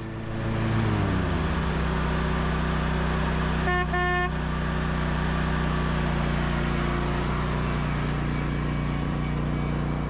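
John Deere riding lawn mower engine running steadily, with a short blast of a car horn fitted to the mower about four seconds in.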